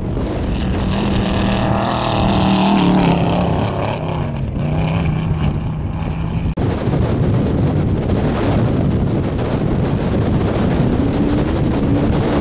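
Off-road race vehicles' engines running at speed through the desert, with wind on the microphone. The sound changes abruptly a little past halfway, and near the end an engine note climbs in pitch as a race buggy comes toward the microphone.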